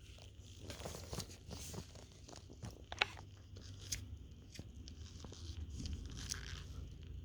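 Handling noise from the parts of a field-stripped pistol being turned over in the hands: scattered light clicks, taps and rustles, with a sharper click about three seconds in.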